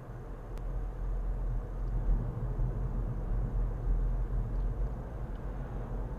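Steady low rumble of road and engine noise inside a car cruising at about 37 mph, picked up by a dashcam's microphone.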